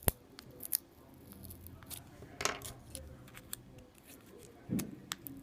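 Plastic guitar pick prying at the glued-down charging-port board of a disassembled Samsung Galaxy S4: scattered sharp little clicks and taps, a short scrape about two and a half seconds in, and a dull knock near the end.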